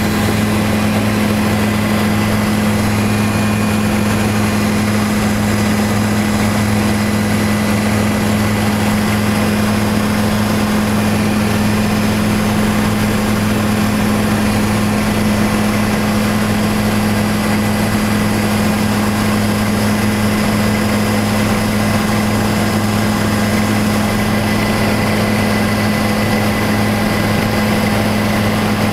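Helicopter in flight heard from inside the passenger cabin: loud, steady drone of the turbine engine and rotors, with a strong low hum and a faint high whine over it.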